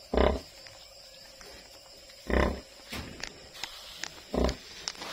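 A sow grunting low three times, about two seconds apart, as she lies nursing her newborn piglets.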